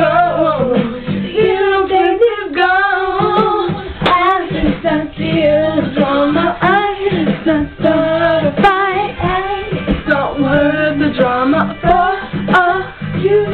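Pop song playing: female vocals with wavering, ornamented melody lines over a steady plucked-string backing, recorded with a dull, muffled top end.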